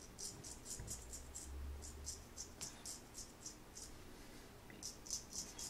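Straight razor scraping through lathered stubble on the neck: faint, quick, short strokes, several a second, in runs with a brief pause about four seconds in.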